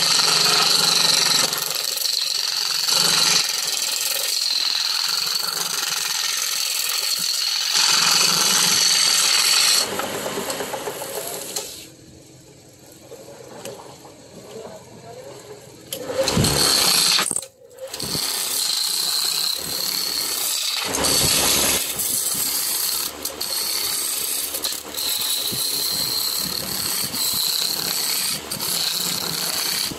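Wood lathe turning a block of wood while a hand-held chisel cuts into it: a loud, steady scraping hiss of the cutting. It drops away for a few seconds in the middle when the tool is lifted off the wood, then starts again.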